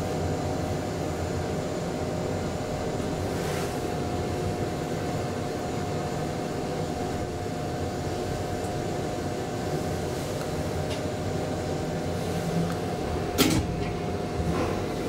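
KONE traction elevator car travelling in its shaft: a steady rushing hum with a constant whine. Near the end, a single sharp clunk as the car reaches the platform level, followed by a smaller knock.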